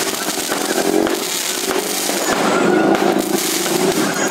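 Fireworks going off in a dense, continuous crackle of small pops and fizzing.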